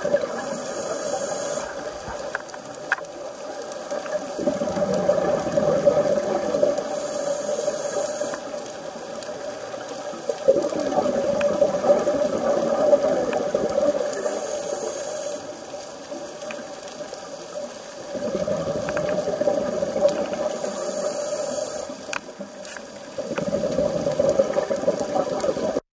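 Scuba regulator breathing heard underwater: a short hissing inhale about every seven seconds, each followed by a few seconds of bubbling exhale. A steady hum runs underneath.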